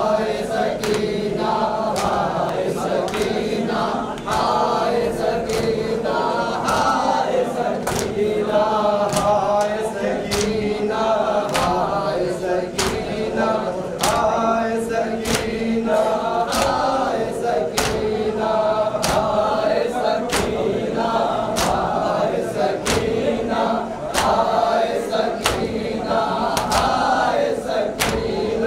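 A group of men chanting a nauha (Shia lament) in unison while beating their chests in matam. The hand-on-chest slaps land as sharp claps in a steady rhythm under the voices.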